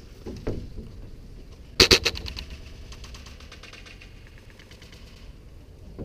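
A single sharp shot from a spring-powered bolt-action airsoft sniper rifle (an upgraded WELL MB01, L96 type) about two seconds in. A fast rattle of clicks follows and fades out about three seconds later.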